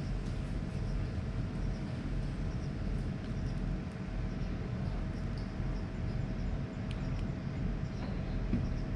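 Steady low outdoor background rumble with a faint steady hum throughout and a few small, faint ticks.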